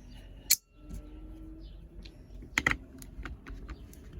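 Sharp clicks and light taps of a hand screwdriver and the impact wrench's plastic housing being handled while its screws are taken out. There is one sharp click about half a second in and a quick pair of clicks near the middle, among fainter ticks.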